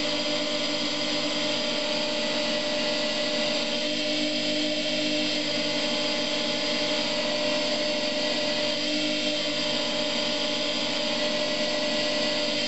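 Bench grinder motor running steadily with a hum and whine while a Damascus steel knife blade is pressed against its spinning dish wheel, giving a continuous grinding hiss as the edge is ground.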